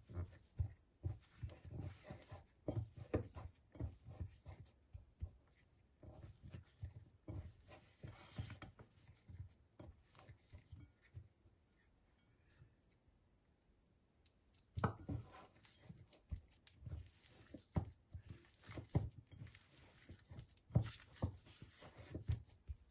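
Hands pressing and gathering a soft, ghee-rich flour dough in a bowl, only binding it together rather than kneading: faint, irregular squishing and light knocks against the bowl. The sound drops away for a few seconds in the middle, then picks up again.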